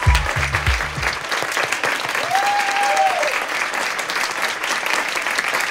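Audience applauding with steady, dense hand-clapping, and a voice calling out briefly partway through. A pounding music beat stops about a second in.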